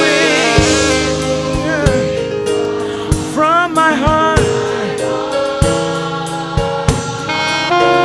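Gospel music: singing over a band, with sustained notes, a wavering melodic run about three to four seconds in, and regular drum hits.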